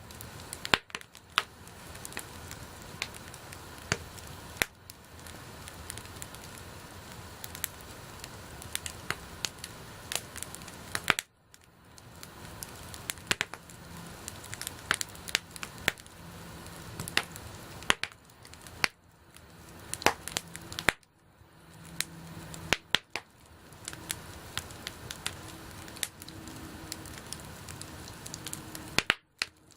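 Wood campfire burning: a steady hiss of flames with frequent sharp, irregular crackles and pops from the burning wood.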